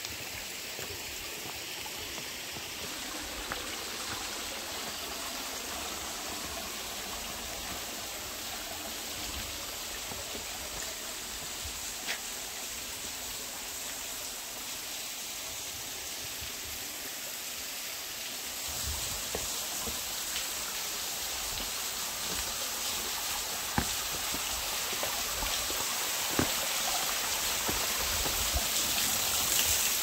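Water running over rocks in a rainforest stream, a steady rushing that grows louder in the second half as a small waterfall comes near. A few sharp ticks stand out now and then.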